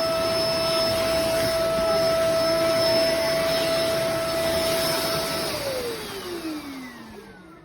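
Bissell MultiClean Allergen Pet upright vacuum running with a steady whine. It is switched off about five and a half seconds in, and the motor winds down with a falling pitch.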